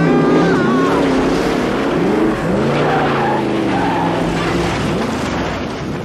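Truck engine revving up and down, with tyres skidding and squealing in the first second. The sound fades toward the end.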